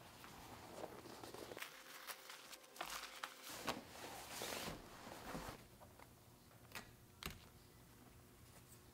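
Shiny black fabric dust bag rustling and swishing as it is slid off a rolled leather apron, followed by two light clicks as small items are set down on the leather.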